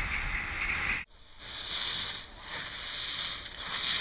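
Skis scraping over firm, groomed snow, a hiss that swells and fades with each turn. It breaks off sharply about a second in, then comes back.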